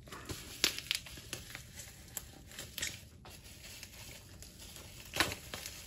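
Packaging of a boxed Hot Wheels collector car being handled and opened: scattered sharp clicks and light crinkling, loudest about half a second in and again near the end.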